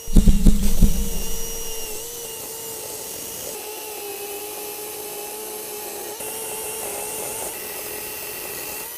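Greenworks 16-inch 40V brushless cordless chainsaw cutting wood: a steady high electric motor whine with chain rasp, the pitch sagging a little under load. Loud low knocks in the first second or so.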